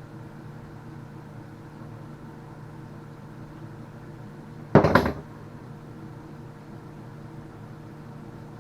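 A single brief clatter of a hard object, two or three quick knocks in about half a second, a little past halfway through, over a steady low hum.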